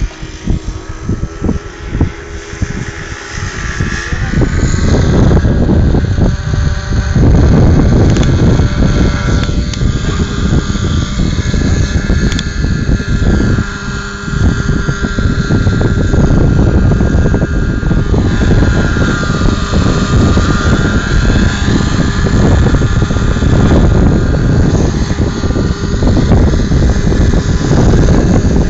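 Radio-controlled helicopter flying 3D aerobatic manoeuvres, its rotor and motor whine rising and falling in pitch again and again, over a loud low rumble that grows heavier about four seconds in.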